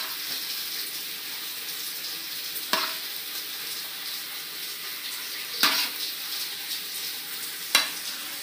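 Egg fried rice sizzling in a wok while a spatula stirs it, with a steady hiss and three sharp knocks of the spatula against the pan.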